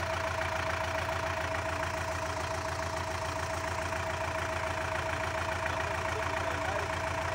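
Soviet MTZ (Belarus) tractor's diesel engine idling steadily, with an even low pulse and a steady whine above it.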